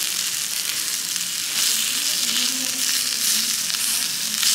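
Grilled food sizzling as it fries, a steady, even hiss.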